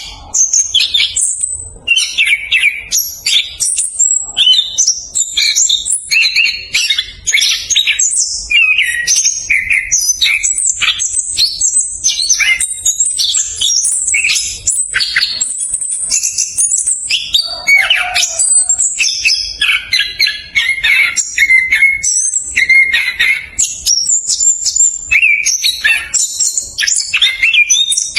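Orange-headed thrush singing a fast, unbroken rolling song of quick, varied chirps and trills packed closely together, with one brief lower phrase partway through.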